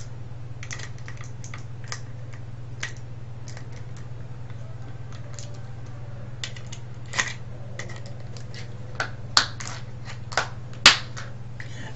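Sharp clicks and taps of small plastic phone-handset parts being handled and pried apart: scattered at first, with several louder snaps in the second half, over a steady low hum.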